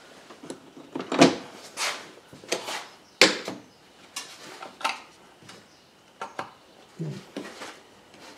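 Scattered clicks, knocks and clatter of hands and hand tools working on parts in a car's engine bay, with two sharper knocks about one and three seconds in.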